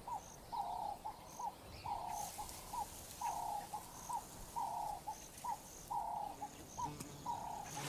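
A dove cooing over and over, a short note then a longer rolling coo, repeated about every second and a quarter, with faint high bird chirps behind it.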